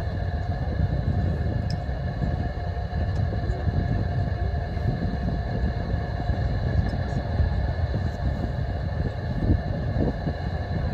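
Distant SpaceX Falcon 9 rocket engines heard from the ground: a continuous, ragged low rumble that keeps going without a break.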